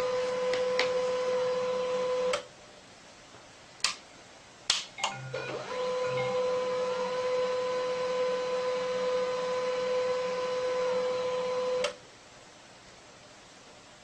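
A small electric motor whirring steadily at one pitch, then stopping. After a pause with a few sharp clicks, it starts again and runs until it cuts off near the end.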